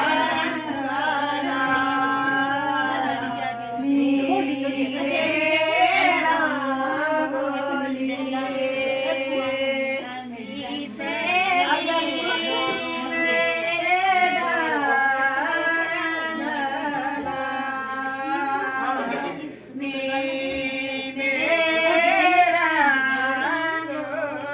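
Bhaderwahi folk song: a voice singing long, bending held notes over musical accompaniment with a steady low drone.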